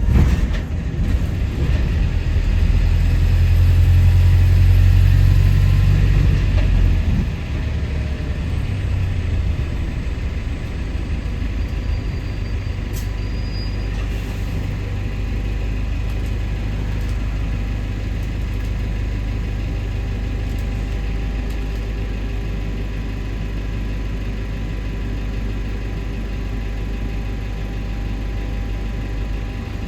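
A London bus's diesel engine heard from on board. A loud, low rumble eases off about seven seconds in, then settles into a steady drone as the bus runs.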